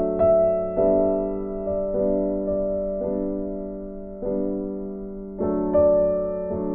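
Background piano music: slow, soft chords, each struck and left to fade before the next.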